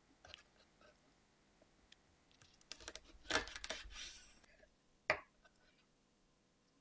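Faint clicks and a short crunching scrape of a kitchen knife cutting the tail off a raw shrimp against a cutting board, the densest stretch in the middle, then one sharp click about five seconds in.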